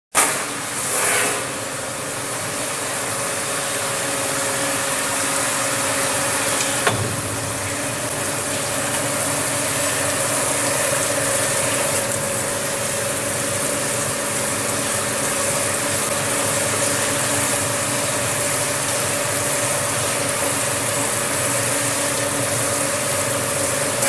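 Rotary glass-bottle washing machine running steadily: a motor hum under the hiss of its water spray nozzles as the turntable carries the inverted bottles round, with one sharp click about seven seconds in.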